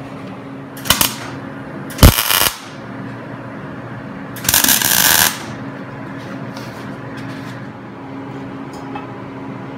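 Arc welder laying tack welds on steel pipe and plate: three separate bursts of crackling arc, a short one about a second in, a louder one at about two seconds and a longer one near the middle.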